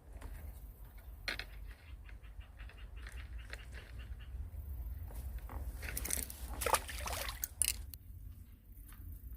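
Rustling and clicking handling noises over a low rumble, with a denser run of sharper rustles and clicks about six to eight seconds in.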